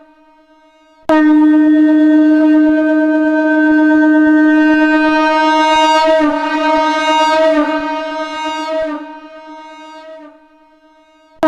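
Shankh (conch shell) sounding one long, steady note pitched at D#. It starts sharply about a second in, wavers near the middle and dies away after about eight seconds. A second blast starts right at the end.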